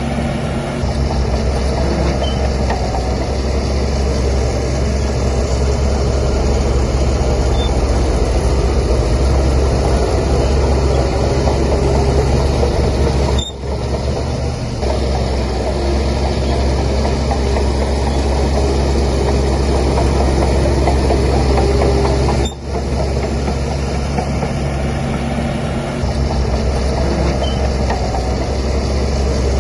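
Diesel engine of a Shantui DH17C3 crawler bulldozer running steadily at working revs, with a heavy low rumble. The sound drops out briefly twice, about 13 and 22 seconds in.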